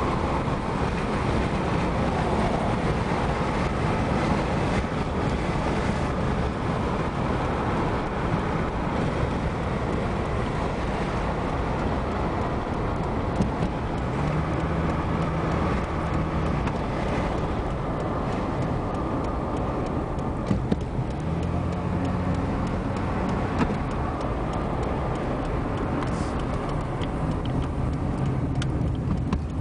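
Steady road and engine noise heard from inside a moving car, with the engine's hum coming up for a few seconds at a time.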